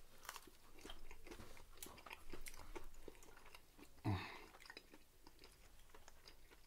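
A person chewing a mouthful of fast-food chicken nugget close to a microphone, with soft, faint mouth clicks throughout. A brief, louder sound comes about four seconds in.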